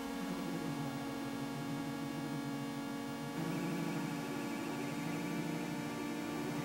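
Electronic synthesizer drone: many steady tones held together over a low hum, growing a little louder and thicker about three and a half seconds in.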